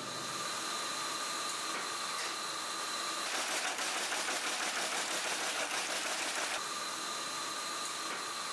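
Electronics production machinery running: a steady mechanical hiss with two steady high whines from the PCB conveyor and oven. About three seconds in, this gives way to the dense, fast ticking clatter of an SMT pick-and-place machine placing components. Near the end the steady hiss and whines return.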